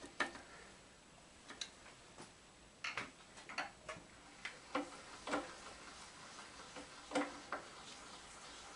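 Scattered light clicks and taps of a small hand tool on steel, with a few sharper knocks around three, five and seven seconds in, as the socket screws of a shaper's retaining plates are worked with a hex driver.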